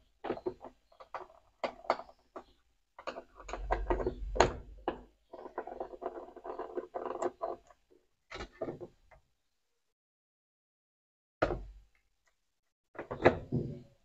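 Phillips screwdriver working a screw out of the plastic control panel of a Consul CWC10 top-load washing machine: a run of clicks, taps and scraping. After a short quiet spell, a single knock and then a few plastic knocks near the end as the panel is handled.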